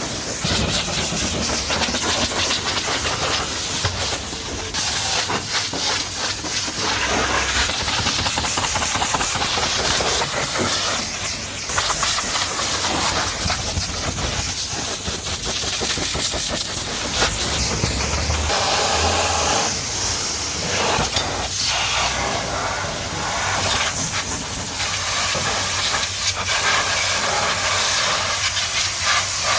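Pressure washer spraying water onto a car, a loud, steady hiss that shifts as the jet moves over the bodywork.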